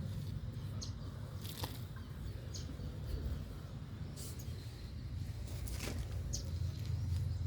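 Hands sifting through loose potting soil in a grow bag, giving a few brief rustles over a steady low rumble, with a few short high bird chirps.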